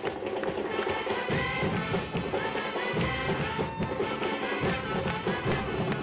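Live band music: drums with metal shells beaten with sticks alongside brass instruments, a street-style fan drum band playing together with a symphonic wind band.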